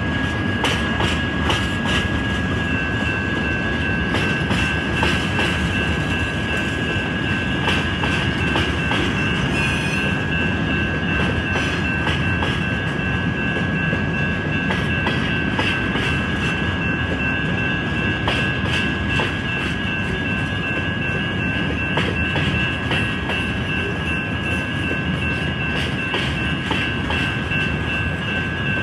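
A freight train of autorack and gondola cars rolling past slowly: a steady rumble with irregular clacks as the wheels cross rail joints. Over it runs a constant high wheel squeal.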